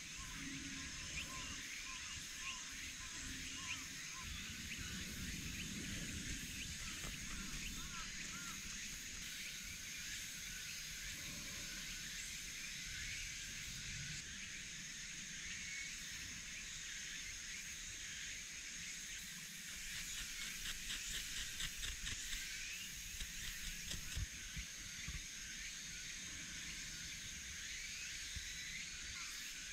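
Faint rustling and scraping of hemp twine being frayed into fluffy tinder by hand and with a knife, with a run of quick scraping strokes about two-thirds of the way through, over a steady high outdoor hiss.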